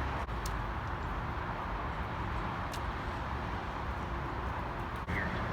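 Steady outdoor background rumble of the kind traffic makes, with no train or voice standing out, and a couple of faint ticks.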